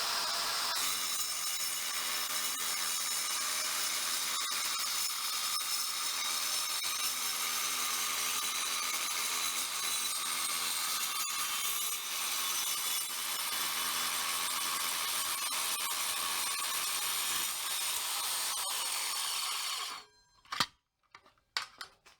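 Evolution S185 7-1/4-inch metal-cutting circular saw with a carbide-tipped blade, running and cutting through mild steel in a steady high-pitched whine. It cuts off suddenly near the end, followed by a few short knocks.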